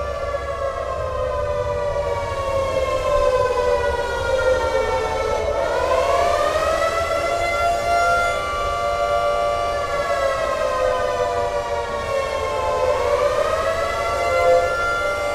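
Recording of a CLM air raid siren, layered into several overlapping sirens, wailing together. Their pitch slides slowly down and swings back up twice, about five and about thirteen seconds in.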